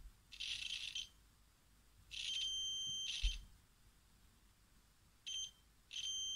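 Continuity buzzer of a Neoteck XL830L digital multimeter beeping in four uneven bursts, one short and one about a second long, each time the crocodile-clip lead closes the circuit: the leads have continuity. Two low knocks, one at the start and one near the middle, come from the clips being handled.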